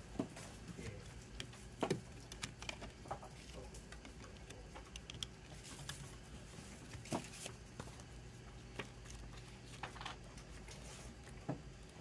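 Faint handling of an open plastic CD jewel case: soft rubbing and light taps, with a handful of sharper plastic clicks spread through.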